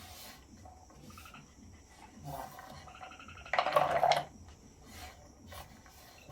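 A short, loud animal call a little past halfway through, over faint repeated high chirping.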